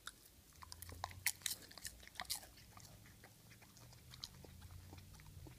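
A cat chewing popcorn: irregular sharp, crisp crunches, with a low steady hum underneath from about half a second in.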